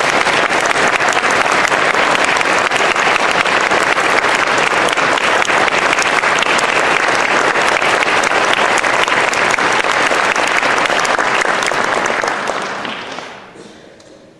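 Audience applauding steadily with many hands clapping, the applause dying away near the end.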